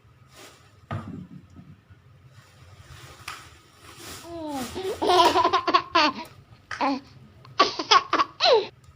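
Laughter: quiet at first, then, about halfway through, several short bursts of pitched, gliding laughing that run until near the end.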